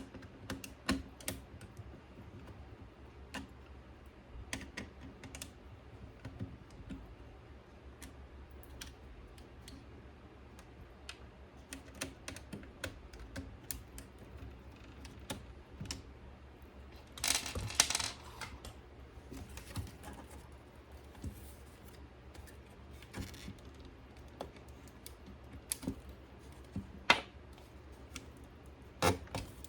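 Scattered small clicks and taps from hands working on an Onkyo NFR-9 mini stereo unit, with a brief louder rustling scrape about 17 seconds in.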